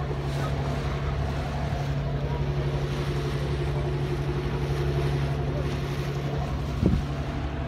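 Ferry launch's engine running with a steady drone, with water churning along the hull. A brief louder sound comes near the end.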